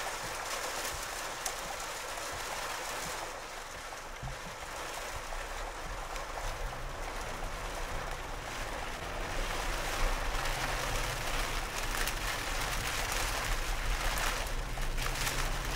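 Steady hiss of rain and wind. A low hum comes in underneath about four seconds in, and the sound grows louder from about ten seconds in.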